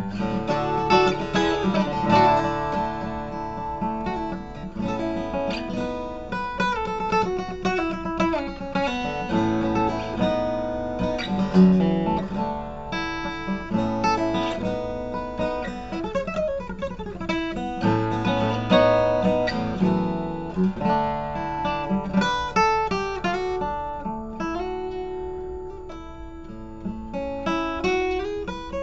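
Seagull Performer CW HG QIT acoustic-electric guitar being played, a steady flow of picked notes and strums, with a downward slide partway through.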